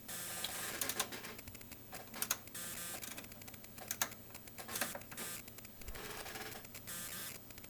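Irregular clicks and clatter of rotary range switches and knobs being turned on an oscilloscope test bench, as the input voltage and the volts-per-division setting are changed.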